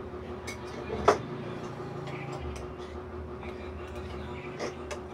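A spoon clicking against dishes while eating: one sharp click about a second in, then a few softer taps, over a steady low hum.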